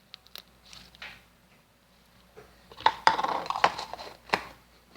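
Close handling noise: a few scattered clicks, then about three seconds in a dense run of crackling clicks lasting over a second.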